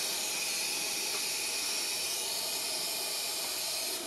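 Steady high hiss of air at a tyre valve, running evenly without a break.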